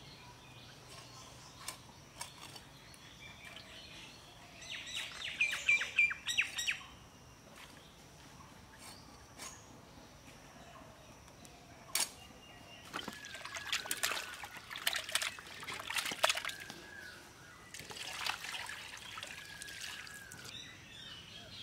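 Water sloshing in a metal bowl and being poured out onto the ground as fish is rinsed, in several splashy spells in the second half. Birds chirp around it, loudest in a quick run of chirps about five seconds in.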